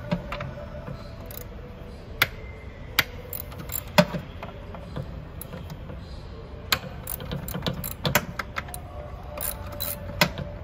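Socket ratchet wrench clicking as it loosens the 10 mm bolts holding the accelerator cable bracket. Single sharp clicks come every second or so at first, then quicker runs of clicks in the second half.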